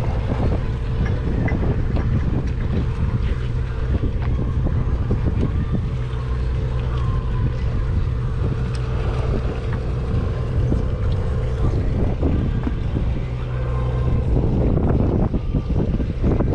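A party boat's engine running steadily, a low drone, with wind rushing on the microphone.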